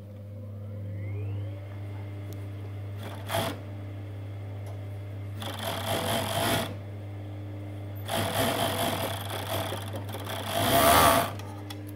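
MO-6714S industrial four-thread overlocker overlocking a knit neck band seam. Its motor spins up about a second in and then hums steadily, with three runs of stitching: a short burst about three seconds in, another around six seconds, and a longer, louder run from about eight to eleven seconds.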